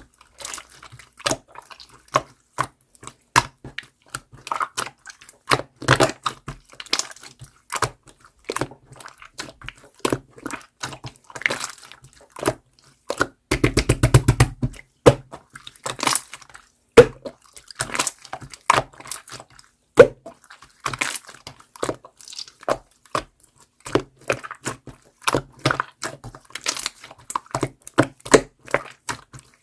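Clear slime being squeezed and pressed by hand, making irregular sharp clicks and pops as air pockets burst. There is a dense run of rapid pops a little before halfway through.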